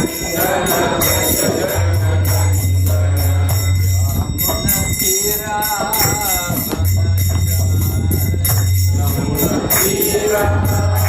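Devotional kirtan: voices singing over a steady, fast jingle of small hand cymbals.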